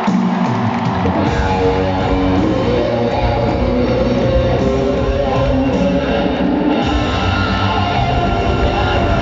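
Live pop-rock band music played loud through an arena sound system, with electric guitar and drum kit. The bass and drums come in heavily about a second in and drop out for a moment near the end.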